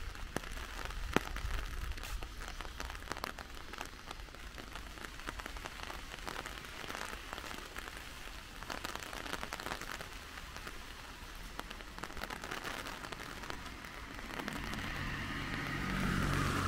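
Steady rain with individual raindrops ticking sharply close by. Near the end a low hum joins in and grows louder.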